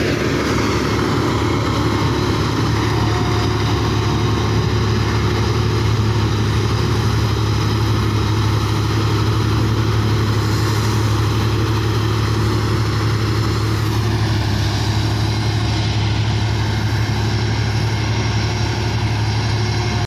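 Combine harvester running steadily as it cuts ripe wheat: a continuous engine drone with a strong deep hum, its note shifting slightly about two-thirds of the way through.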